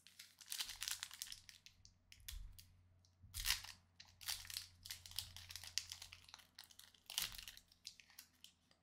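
Foil wrapper of a Pokémon trading-card booster pack crinkling in the hands as it is torn open and crumpled, in a run of irregular crackly rustles.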